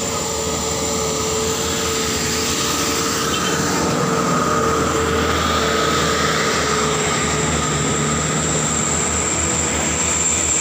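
Small tanker truck's engine labouring up a steep, slippery grade, growing steadily louder as it comes closer, with steady whining tones over the rumble.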